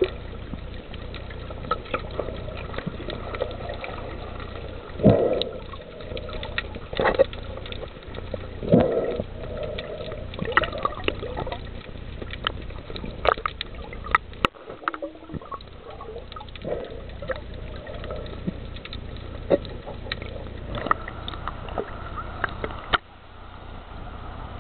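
Water heard through a camera held underwater or at the surface: gurgling and sloshing with many sharp clicks and pops over a steady low hum. The sound drops noticeably near the end.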